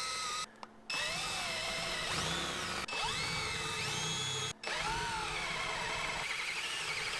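Cordless drill with a twist bit boring holes through a steel plate. There are about four runs with short breaks between them; in each, the motor whine rises as it spins up and then holds steady under load.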